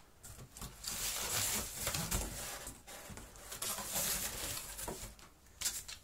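Plastic packaging bags crinkling and rustling as packed parts are handled in a cardboard box, with a few sharp clicks.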